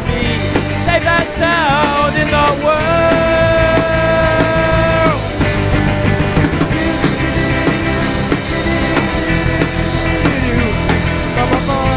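An indie rock song played by a full band over a steady beat. A lead melody bends up and down, then holds one long note for a couple of seconds before dropping away.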